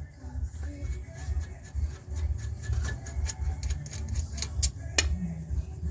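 Short metal clicks and taps of a spanner working the front brake caliper bolts, one sharper click about five seconds in, over a steady low rumble.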